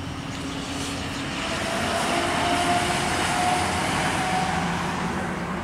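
A fire department ambulance driving past: a rushing road noise with a steady engine hum, building to a peak in the middle and easing off toward the end.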